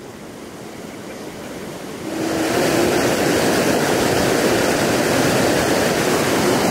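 Fast mountain river rushing over rocks: a steady, even roar of white water, quieter at first and stepping up to loud about two seconds in.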